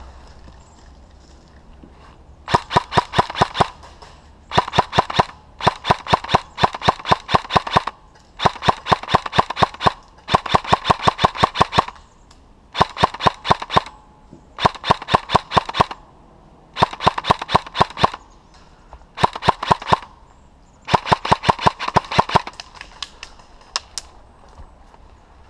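Airsoft guns firing in about ten short rapid-fire bursts of sharp cracks with brief pauses between them, and a few single shots near the end.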